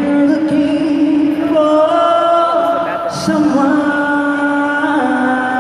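A woman's voice singing long held notes live through an arena sound system, with a short break about three seconds in before the next sustained note.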